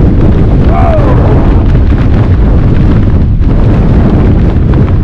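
Strong storm wind buffeting the microphone, a loud, constant rumble.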